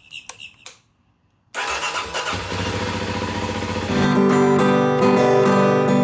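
A few faint clicks and a short silence, then a loud rushing noise that starts suddenly about a second and a half in. From about four seconds in, strummed acoustic guitar music plays.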